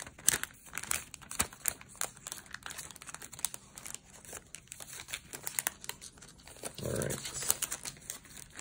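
Thin clear plastic packaging crinkling and paper rustling as hands rummage through a bag of paper ephemera, in quick, irregular crackles.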